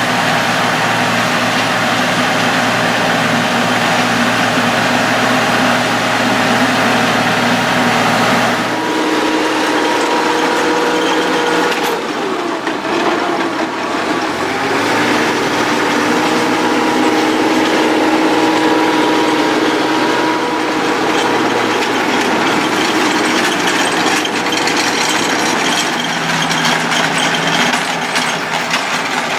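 An engine running steadily. Its pitch changes about nine seconds in, then drifts up and down.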